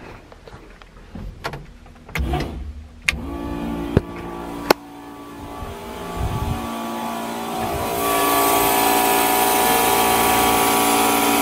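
DeatschWerks (DW) electric fuel pump switched on and running with a steady whine after a sharp click about three seconds in, with two more clicks shortly after. It grows louder with a strong hiss from about eight seconds in as fuel is pushed through the new lines to purge them and check for leaks, with the engine not running.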